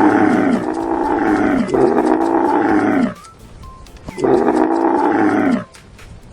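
Cow mooing: long, drawn-out calls that drop in pitch, repeated three times with short pauses between.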